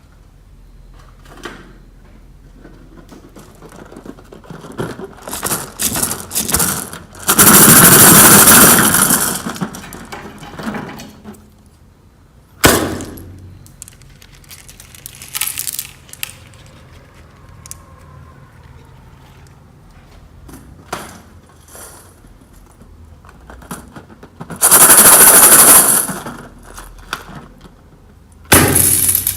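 Clear slime with beads mixed in being squished and kneaded by hand, giving irregular wet crackles and clicks. Two loud, dense stretches of about two seconds each stand out, with a single sharp snap between them.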